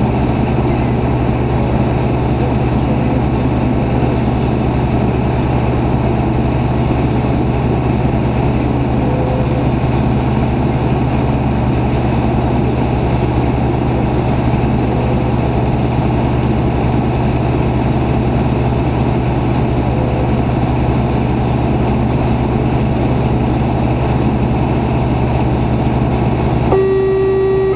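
Fire truck's engine idling steadily, heard from inside the cab. An electronic tone starts near the end.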